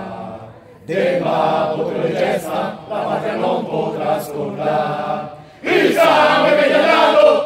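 Bersaglieri fanfare singing together as a chorus, in sung phrases separated by short breaks, the last phrase the loudest.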